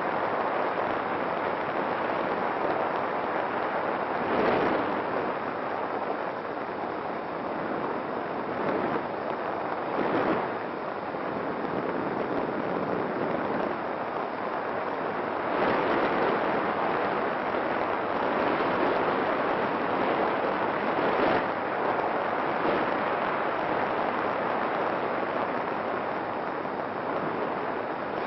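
Steady rushing noise, like wind on a microphone, that swells and eases every few seconds, with no clear motor whine.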